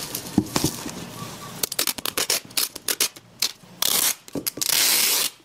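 Packaging being handled while a box is packed: a run of sharp clicks and rustles, then two tearing rips near the end, the second longer and the loudest.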